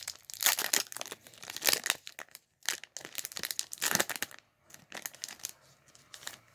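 Thin plastic packaging crinkling in irregular bursts as trading cards are handled, with short pauses between handfuls.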